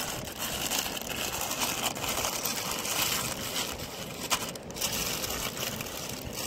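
Paper rustling and crinkling as a sheet wrapped around meat is folded and pressed flat by hand, with a few sharper crackles about four seconds in.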